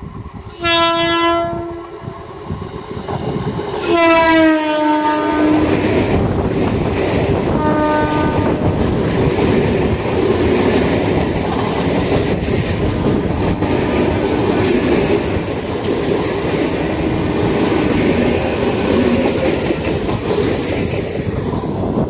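Indian Railways train horn: a short blast, then a louder, longer blast about four seconds in that sags slightly in pitch, and a brief toot near eight seconds. A train then rushes past with a loud, steady rumble and wheels clattering over the rail joints.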